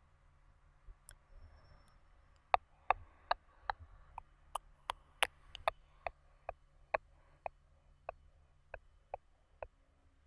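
Close-miked ASMR mouth clicks: a run of sharp, separate clicks about two a second that starts a couple of seconds in, then slows and grows fainter toward the end.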